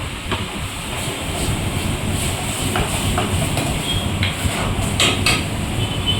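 Metal utensil clanking and scraping in a cooking pot, with a few sharp knocks near the end, over a steady low rumble.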